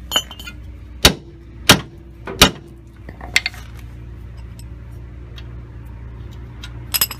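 Sharp metallic knocks and clanks of hand tools against a steel track rod end ball joint as a clamp and spanner are fitted onto it: three loud ones in quick succession about a second in, then a few lighter clinks. A steady low hum runs underneath.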